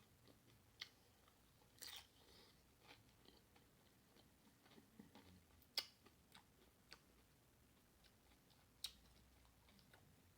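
Faint close-up chewing of Doritos nachos with cheese and meat: irregular wet mouth clicks and crunches of the chips, a handful of separate bites and chews, the sharpest about six seconds in.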